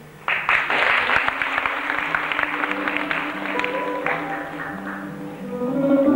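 Audience applauding, which breaks out just after the start and dies away over about five seconds, as a small band begins the instrumental introduction to a song. The music grows louder near the end.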